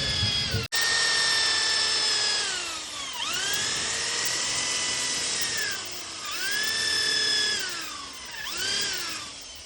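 Handheld electric drill running at speed with a high whine, the motor slowing and speeding back up three times as the trigger is eased and squeezed again.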